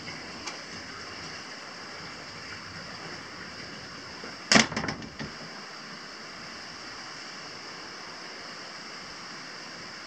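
Steady hissing background noise, with a sudden brief clatter of several sharp knocks about halfway through.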